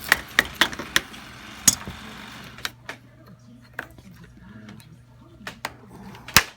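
Hammer knocks, quick and sharp at about four a second for the first second or two, then a few scattered knocks with a loud one near the end: cut pieces of old pipe being knocked out of a chair's caster-socket fitting.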